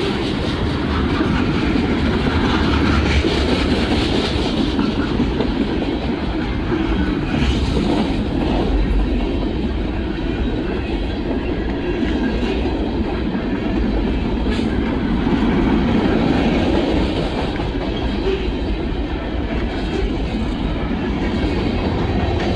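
CSX freight train cars rolling past, a steady loud rumble of steel wheels on the rails.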